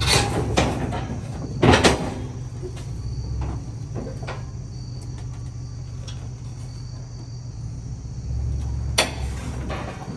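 A vehicle engine running low and steady under heavy metal clunks as a lifted K5 Blazer on one-ton axles climbs a flatbed trailer's ramps and rolls onto the steel deck. The loudest clunks come twice just under two seconds in, with a sharp one near the end.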